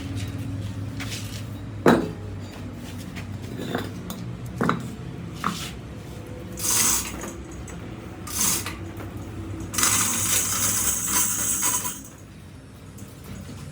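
Metal tools clinking and knocking a few times over a steady low hum, then short hissing bursts and a longer hiss of about two seconds that cuts off near the end.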